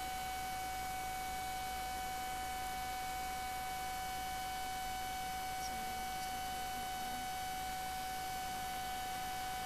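Steady electrical hum: one constant high tone with fainter higher tones above it, over an even background hiss. Nothing else stands out.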